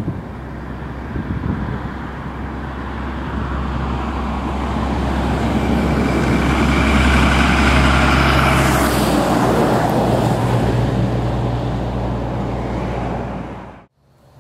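A motor vehicle passing by: its engine hum and tyre noise swell to a peak about halfway through, dip slightly in pitch as it goes past, and fade. The sound then cuts off abruptly shortly before the end.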